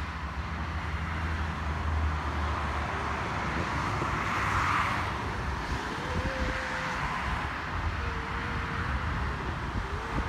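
Distant jet airliner climbing away after takeoff: a steady engine rumble that swells a little about four to five seconds in.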